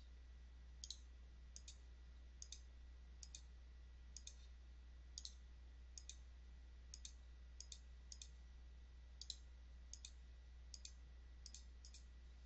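Faint computer mouse clicks, many in quick pairs, about one every second, over a low room hum.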